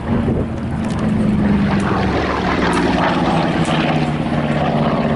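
Piston-engined propeller aircraft flying past at an air display. Its engine note is loud and steady and drops lower about two seconds in as it passes.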